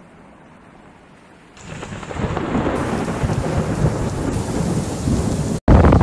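A loud, long storm rumble that swells suddenly about one and a half seconds in and carries on until it cuts off abruptly near the end, followed at once by a loud rough noise.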